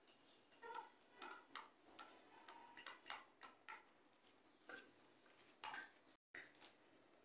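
Chickens pecking feed from dishes: faint, irregular clicks of beaks striking grain and the bowl, about two a second.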